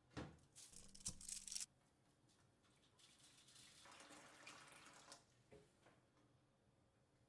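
A foil-wrapped cake tin is set down into a metal baking tray with a knock and a crackle of foil. About three seconds in, water pours into the tray for roughly two seconds, filling a water bath, and then the tin gives a light knock as it is nudged into place.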